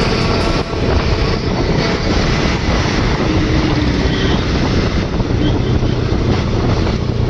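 Wind rushing over the microphone of a Bajaj Avenger motorcycle riding at highway speed, a loud, steady roar with the bike's engine and road noise beneath it.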